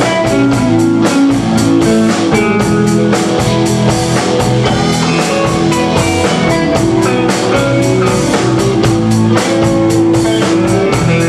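Live rock band playing an instrumental passage: electric guitars, bass guitar and a drum kit keeping a steady beat.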